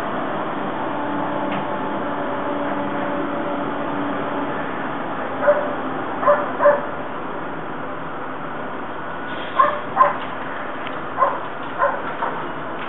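Dogs in a dog run barking, heard through a closed double-pane window: after a few seconds of steady background hum, short barks come in clusters, three and then about five near the end.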